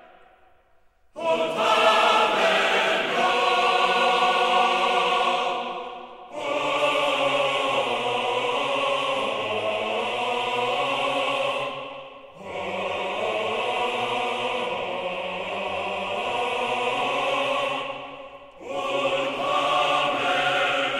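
Choral music on the soundtrack: long held chords sung in phrases of about five to six seconds, each fading briefly before the next. It starts about a second in, after a moment of near silence.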